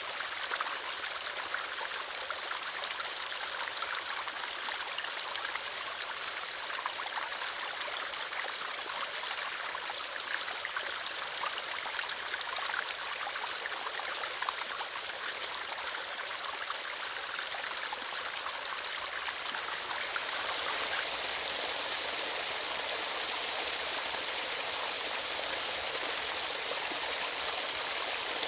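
Running water of a stream, a steady rush and splash with no pauses. About 20 seconds in it turns fuller and slightly louder, with more low rushing.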